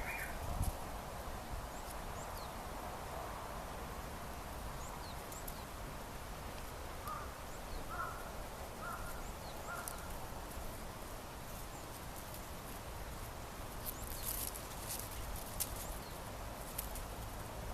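Outdoor ambience: a steady low rumble of wind on the microphone, with four short bird calls about halfway through and a few faint clicks near the end.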